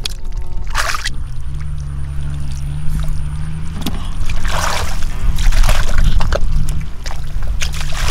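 Muddy water splashing and sloshing in short bursts as hands sweep and scoop through a shallow puddle, with a steady low drone underneath for much of it.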